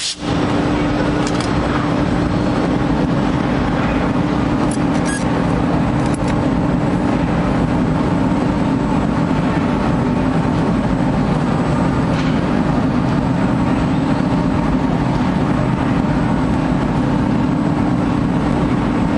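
CNC woodworking machine running with a steady hum and machine noise, a few faint ticks in the first few seconds.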